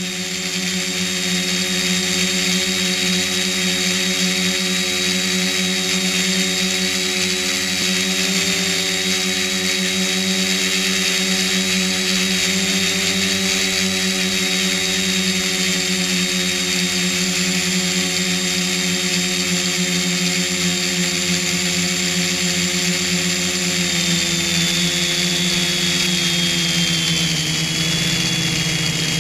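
Squid FPV quadcopter's electric motors and propellers whining steadily, picked up by the onboard camera, with a hiss of rushing air. The whine drops in pitch near the end.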